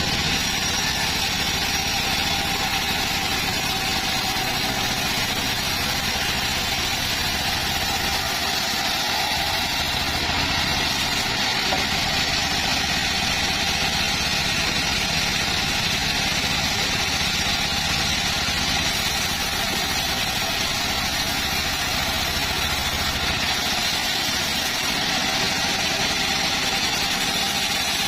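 Circular saw running steadily, a continuous even mechanical drone with no breaks.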